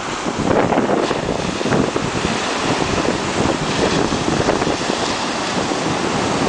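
North Sea waves breaking and washing in as a continuous rush of surf, with wind buffeting the microphone.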